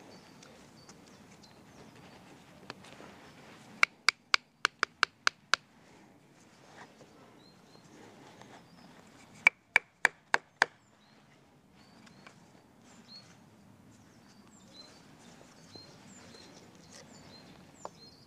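Sharp wood-on-wood knocks as the wedge is tapped home into a carved wooden pot hook against a log: a quick run of about eight knocks about four seconds in, then about five more near ten seconds in.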